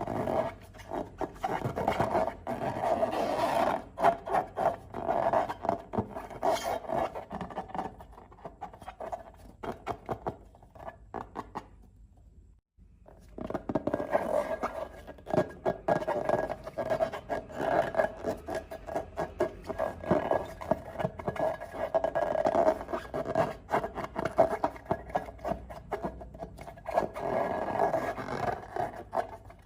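Slime being handled and stirred: dense sticky crackling and scraping, with a brief break about thirteen seconds in.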